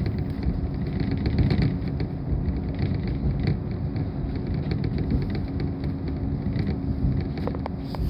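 Diesel railcar running along the line, heard from inside the passenger cabin: a steady low rumble of engine and wheels with a steady hum and a few light clicks.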